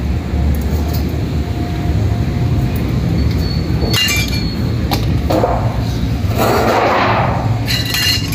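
Metal clinks and rattles as the satellite dish's metal support rods and small fittings are handled, with a sharp ringing clink about four seconds in and a cluster of clinks near the end. A steady low rumble runs underneath, and a rushing noise swells and fades in the second half.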